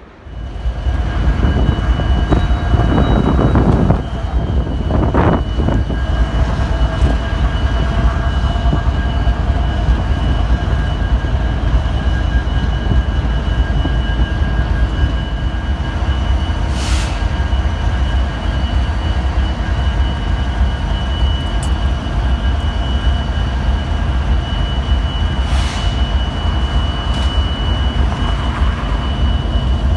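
Diesel locomotives idling in a locomotive shop yard: a steady low rumble with a steady high whine on top. Now and then there is a short hiss of air.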